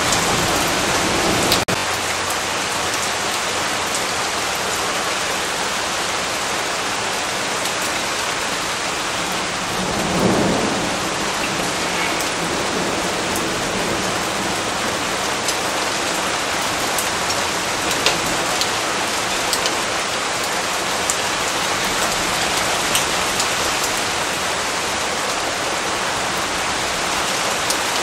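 Steady rain falling, with a short low rumble of thunder about ten seconds in.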